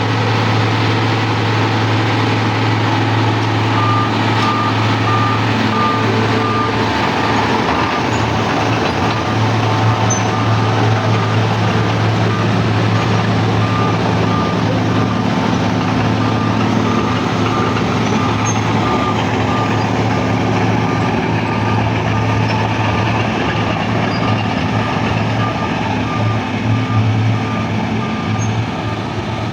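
Wirtgen W2000 road milling machine working, its diesel engine running with a loud steady drone under a broad rushing noise. A reversing alarm beeps steadily, about two beeps a second, from about four seconds in.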